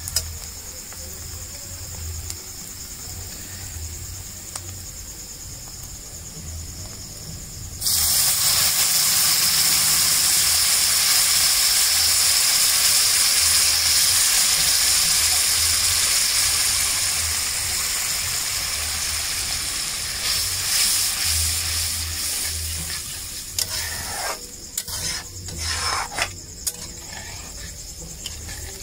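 Water poured into a steel kadhai of hot oil and fried masala hits it with a sudden loud sizzle about eight seconds in, which slowly dies down as the gravy thins. Before that the masala fries quietly, and near the end a steel spatula scrapes and stirs in the pan.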